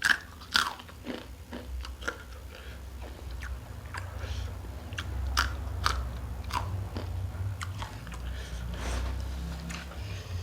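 A person biting into crunchy food and chewing it: two sharp, loud bites at the start, then repeated crunching as the mouthful is chewed.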